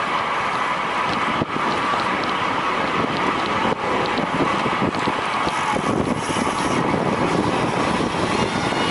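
Steady wind rush over a racing cyclist's camera microphone at speed, with faint scattered ticks.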